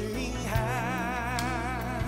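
A song playing, with a voice holding one long note with vibrato from about half a second in, over the band's sustained accompaniment.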